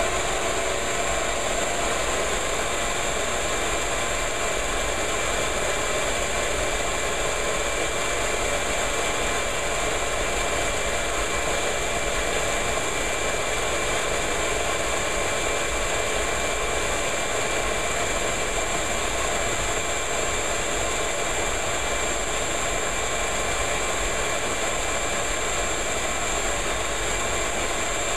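Ridgid shop vacuum running steadily, its hose sucking dust out of the back of an electric dryer. A loud, even rush of air with a thin high-pitched whine on top.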